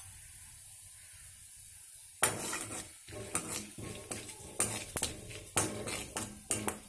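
Whole spices frying in a little hot oil in an aluminium kadai with a faint steady sizzle; from about two seconds in, a metal spoon stirs them, scraping and clinking irregularly against the pan.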